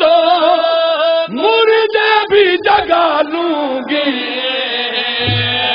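Men chanting a devotional refrain together into a microphone, in long held melodic phrases that slide between notes.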